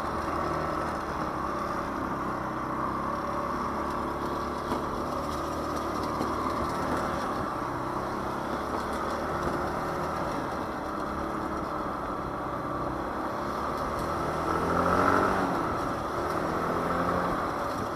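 Daelim Witty 100 scooter engine running steadily under way, with wind and road noise over it; the note rises and grows louder about fifteen seconds in, then settles. It runs fairly quiet.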